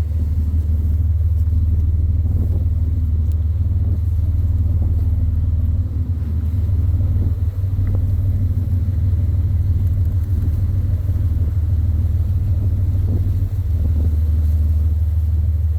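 Whale-watching boat's engine running with a steady low drone, heard from on board; its tone shifts a little for several seconds mid-way.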